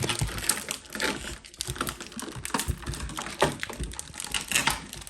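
Pokémon trading cards being tipped out of their box and handled: a run of quick, irregular light clicks and rustles as the cards slide and tap against each other and the surface.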